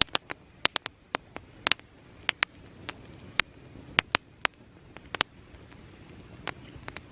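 Irregular sharp ticks and taps, one to three a second and uneven in loudness, over a faint steady hiss.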